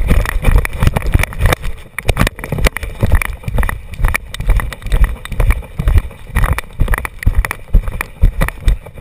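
GoPro HERO2 in a chest mount worn on a running dog's back, rattling and knocking in quick uneven clatters with every stride over low thuds; the mount's screw is loose. The clatter dies down near the end as the dog slows.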